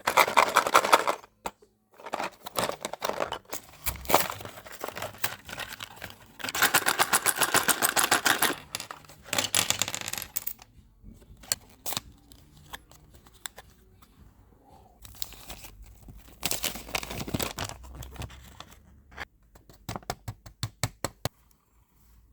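A LEGO Minifigures blind-bag packet being crinkled and torn open by hand, in irregular bursts of rustling, with sharp clicks from small plastic parts.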